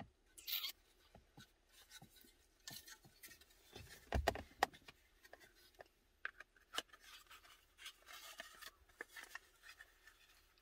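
Faint plastic clicks and rubbing as the Dodge Journey's climate control switch assembly is handled and fitted together by hand, with one louder knock about four seconds in.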